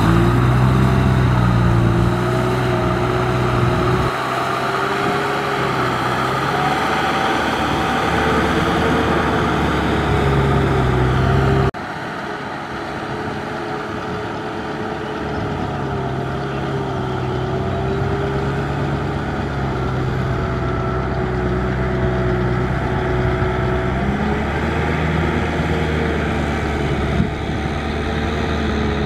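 Kubota M6040SU tractor's diesel engine running under load as it drives a rotary tiller through a muddy rice paddy; its note wavers up and down with the load. The sound drops abruptly about twelve seconds in, then carries on.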